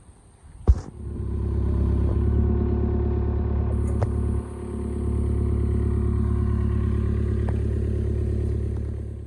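A sharp click, then a motor runs steadily at an unchanging pitch for about eight seconds and stops near the end.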